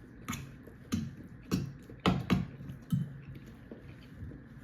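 Tableware being handled: about six sharp clinks and knocks, several with a short low ring, over the first three seconds, then quieter.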